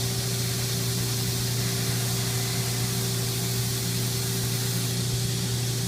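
Belt grinder running with an old furnace blower pulling dust away through the hood: a steady hum with an even hiss of moving air.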